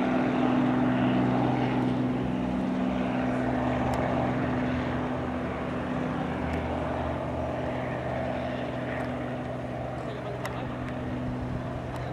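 Robinson R44 helicopter flying away, its rotors and piston engine a steady drone that slowly fades as it recedes.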